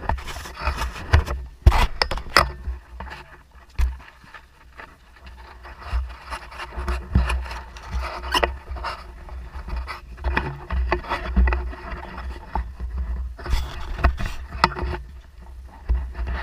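Handling noise on a body-worn camera: irregular scrapes, rubs and knocks as its microphone brushes against a camouflage uniform sleeve and chest gear, over a low rumble.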